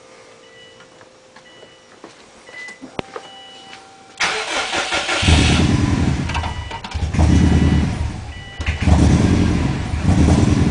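2004 Subaru WRX's turbocharged flat-four cranked on the starter about four seconds in, catching and running roughly, its level swelling and dipping every second or two. The engine's computer reports misfires on all cylinders. Faint short beeps and a click come before the start.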